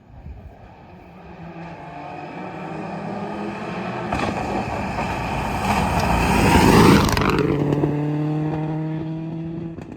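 Rally car approaching at speed and passing close by: its engine grows steadily louder to a peak about seven seconds in, where the note drops sharply in pitch as it goes past, then runs on at a lower, steady pitch as it moves away before the sound cuts off just before the end.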